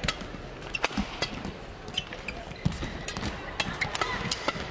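Badminton rackets striking the shuttlecock in a fast doubles rally: a string of sharp hits at irregular intervals, about one every half second to a second, over a steady arena murmur.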